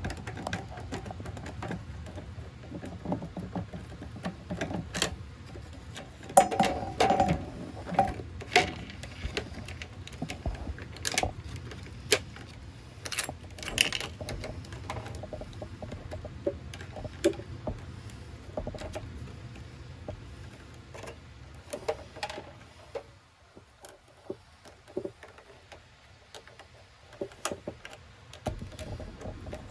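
Scattered clicks, taps and knocks of hand tools and small metal parts being handled while wiring is disconnected, over a steady low hum that drops away about three-quarters of the way through.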